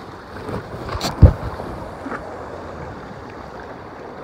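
Waves and wind noise on a rocky sea shore, with a brief loud low thump about a second in.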